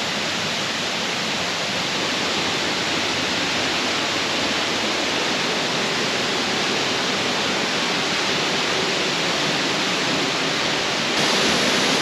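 Tall jungle waterfall rushing steadily onto rocks, a constant roar of falling water that gets a little louder near the end.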